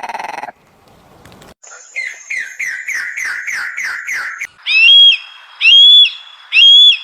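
A bird calling: a quick series of descending slurred notes, then three loud, clear whistles that each rise and hold steady.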